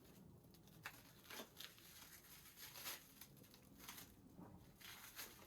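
Near silence, with faint scattered rustles and small clicks of packaging being handled.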